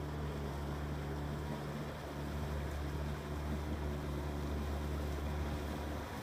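Paddlewheel boat's motor running with a steady low drone that drops away at the very end.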